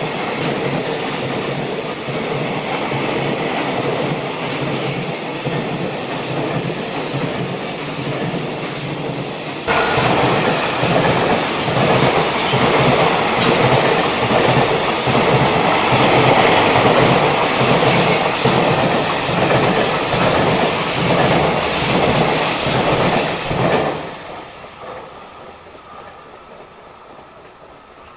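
Freight train of container flatcars running past with steady wheel clatter over the rail joints and brief high wheel squeals. About 24 s in the sound drops sharply as the last wagons pass, then fades as the train moves away.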